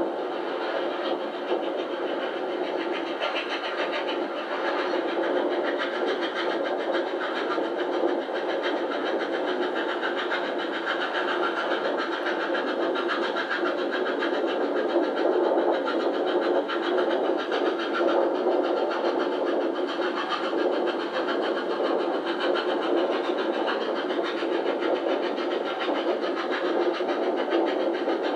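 Victorian Railways R class steam locomotive working hard at speed on the track alongside, its exhaust mixed with the train's own running noise into one steady, unbroken sound. Heard thin and without bass, as replayed from old videotape through a television speaker.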